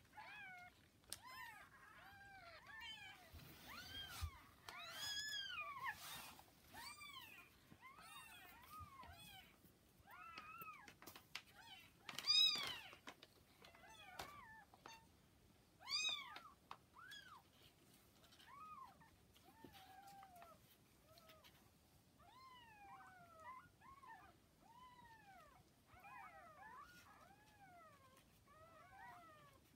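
Newborn kittens mewing over and over in short, high, rising-and-falling cries, several calls overlapping at times, the loudest about halfway through.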